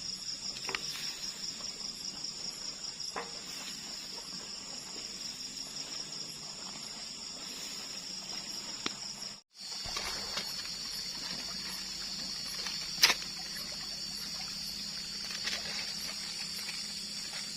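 Night-time cricket chorus, a steady high pulsing trill, over a faint trickle of water. The sound cuts out for an instant just past halfway, and a sharp click comes about thirteen seconds in.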